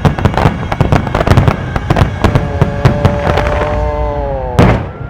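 Aerial fireworks going off in rapid succession: a dense string of bangs and crackles, with a held tone sounding from about halfway that sinks slightly in pitch, and one loud burst near the end.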